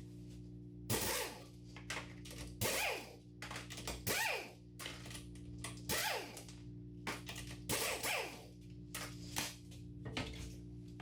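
Background music: a steady sustained chord with a sharp hit about every second and a half to two seconds, each hit falling away quickly in pitch.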